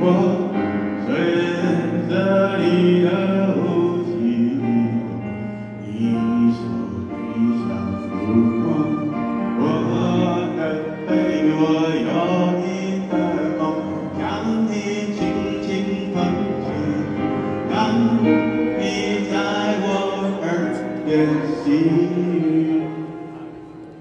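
A man singing a slow Mandarin ballad live into a microphone, with piano accompaniment. The music fades down near the end.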